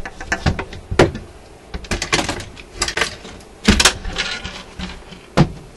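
Clicks, knocks and rattles of hands working on an RCA Victor 65U radio-phonograph's record changer and wooden cabinet. Sharp knocks come about a second in, near the middle and shortly before the end.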